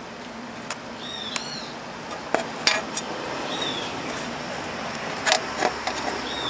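A few sharp clicks and knocks from hands and tools working inside a mixing desk's metal chassis, the loudest about two and a half and five seconds in. Between them come several short, high, arched chirps, like a bird's, over a steady background hiss.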